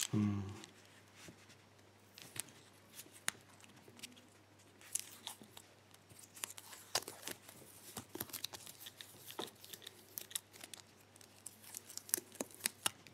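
Blue plastic sleeve being torn and peeled off a key by hand: faint crinkling, tearing and small clicks, with a low thump right at the start.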